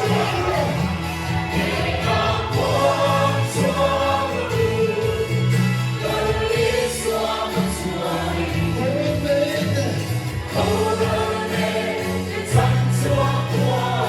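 Music with a group of voices singing over sustained bass notes, in a choir or gospel style.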